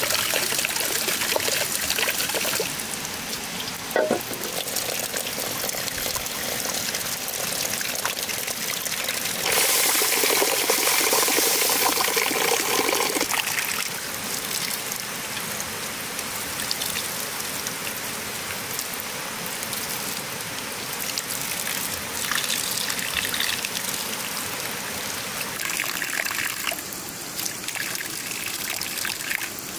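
A thin stream of running water splashing into a tiled basin as herbs and then fish are rinsed and handled under it, louder for a few seconds near the middle, with one brief knock about four seconds in.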